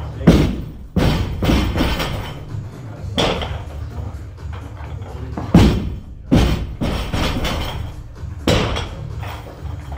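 60 kg barbells loaded with rubber bumper plates dropped from overhead onto lifting platforms, each landing a heavy thud with plates rattling after it. There are six drops, two close together at the start and two more a little past halfway.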